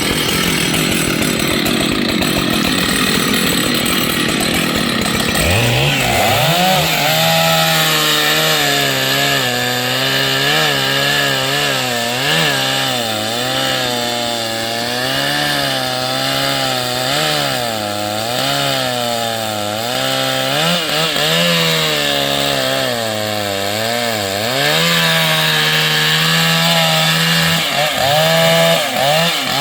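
Large two-stroke chainsaw cutting through wood. The engine's pitch keeps dipping and recovering as the chain loads up in the cut, and it holds steadier near the end.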